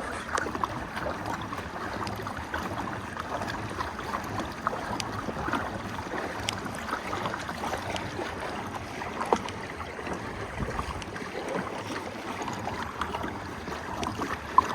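Water lapping and splashing around a kayak, with scattered small clicks and knocks; a sharper knock comes about nine seconds in and another near the end.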